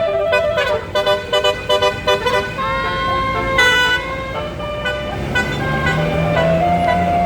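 A tour bus's basuri 'telolet' horn playing a melody: quick short notes with a falling slide in the first couple of seconds, then a rising slide into longer held notes, over the bus's engine.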